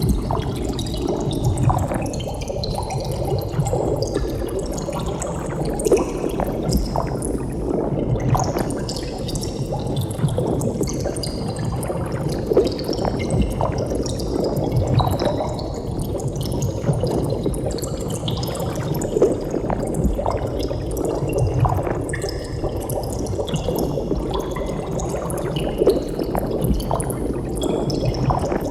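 Water bubbling without a break: dense streams of small bubbles gurgling and popping, many tiny pops over a steady watery rush.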